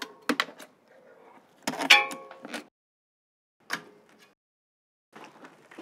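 Clicks and clunks of a Thule Easyfold 932 e-bike rack's clamp and strap fittings as a bike is secured on it: a few light clicks, a sharp clack with a brief ring about two seconds in, a single click near four seconds, then faint handling noises.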